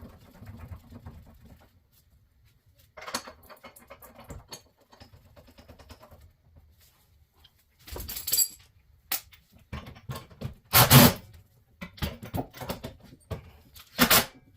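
Metal suspension parts and hand tools knocking and clinking as a part is fitted into the car's front suspension, with scattered light clicks and two loud sharp clanks, one a little past halfway and one near the end.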